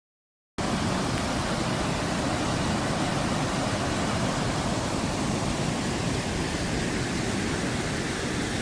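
Iller river water rushing steadily, a loud even roar of falling water that cuts in about half a second in.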